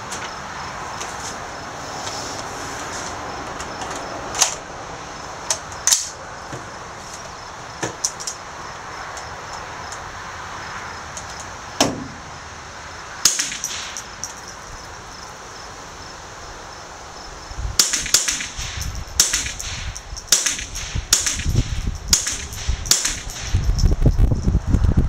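Sharp cracks of an AR-style .22 long rifle being fired, single shots spaced irregularly in the first half, then coming much more thickly over the last several seconds along with low rumbling noise.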